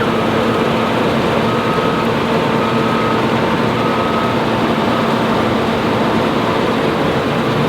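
Combine harvester running steadily at work, with a high electronic warning beep sounding about once a second, five times over the first few seconds.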